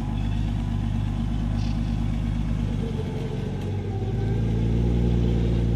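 Off-road vehicle's engine running steadily, its pitch stepping up about two-thirds of the way through as the revs rise, then holding.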